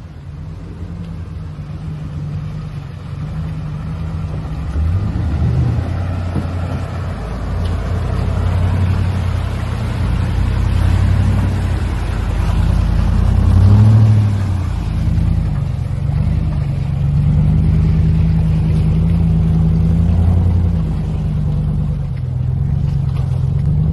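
Chevy Silverado pickup's engine working under load as it drives through a deep, muddy creek crossing towing a boat trailer, revving up about five seconds in and again around fourteen seconds, with water sloshing around the tyres. It grows louder as the truck comes closer.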